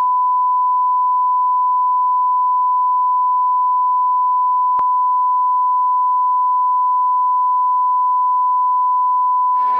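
Steady 1 kHz reference test tone, the tone that goes with colour bars, holding one pitch at constant loudness, with a single click about halfway through. Right at the end, louder mixed sound comes in over it.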